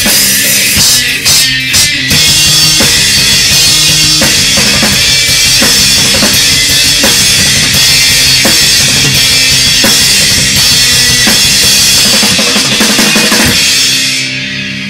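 Rock song played on a bass guitar and a hard-hit drum kit with cymbals. About fourteen seconds in, the drumming stops and held bass notes ring on and fade out as the song ends.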